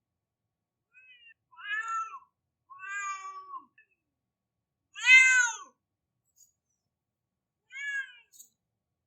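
A cat meowing in drawn-out crying calls, about four in a row with short pauses between, the loudest a little past halfway.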